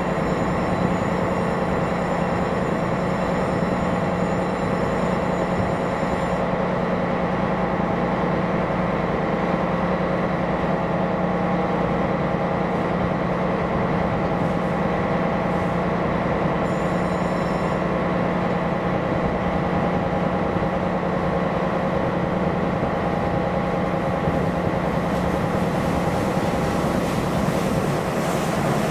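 Diesel engine of a small gravel-carrier ship running steadily as the ship moves slowly past: a constant low drone with several steady hums and whines over it. A faint high whine drops out about six seconds in.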